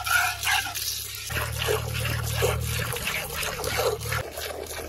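Cow being hand-milked: milk squirting from the teats into a metal pail in a quick rhythm of about three squirts a second. A low steady hum runs under the middle part.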